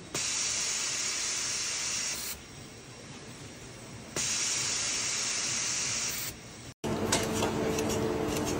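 Two bursts of spraying hiss, each about two seconds long and a couple of seconds apart. Near the end the sound changes to a steady machine hum with several tones.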